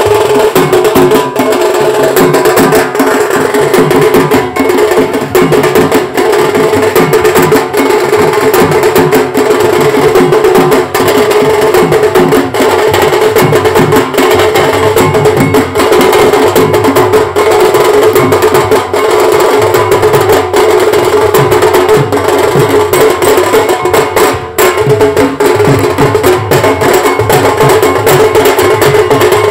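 Bengali wedding band party playing loudly: rapid, constant drum strokes under steady held notes from the band's horns, recorded close on a phone's microphone.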